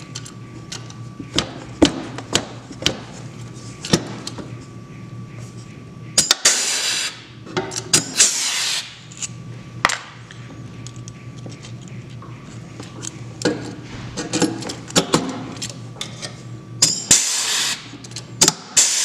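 Pneumatic (air) rivet gun setting steel rivets: several short bursts of air hiss as it cycles and pulls each rivet, with clicks and knocks of the tool and rivets being handled in between.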